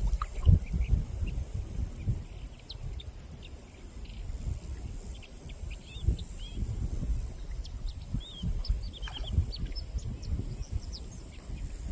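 Wild birds chirping in many short, scattered calls, over a steady high-pitched drone and an irregular low rumble.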